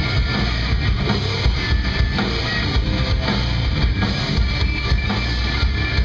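A nu metal band playing live, with electric guitars and a drum kit over a heavy low end, loud and steady.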